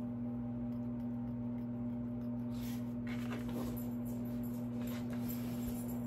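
Steady low electrical hum, with faint, short rustles and light scrapes from thin wooden kit pieces and paper being handled and marked with a pencil.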